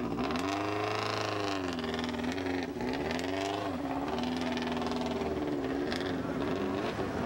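Subaru Impreza WRC rally car's turbocharged flat-four engine revving as the car pulls away through mud, its pitch rising and falling twice and then holding steady.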